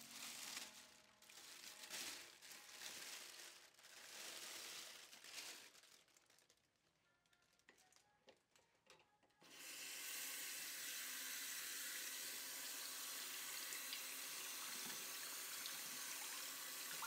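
Plastic bag rustling and crinkling in handling for the first few seconds, then a short silence. About halfway through, a bathroom sink faucet is turned on and runs steadily, water pouring over a tie-dyed shirt bundle in the basin as the dye is rinsed out.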